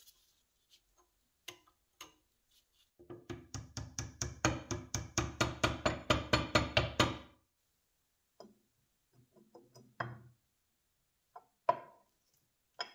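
Soft-faced mallet hammering rapidly on the handle end of a cast-iron vise's spindle, about six blows a second for some four seconds, the metal ringing with each blow. A few single knocks and clicks come before and after as the parts are fitted, the sharpest near the end.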